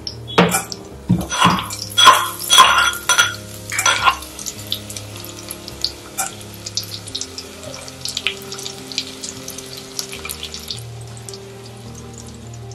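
A steel pestle pounding in a small steel mortar, about eight sharp metallic strikes over the first four seconds. After that, spices sizzle and crackle in hot oil in a steel pot.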